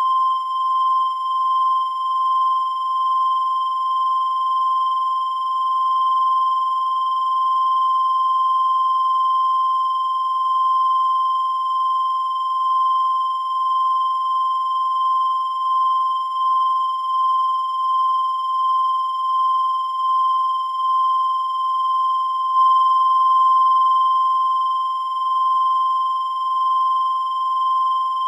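Continuous high-pitched electronic tone, held at one pitch near 1 kHz without a break, its loudness wavering slightly.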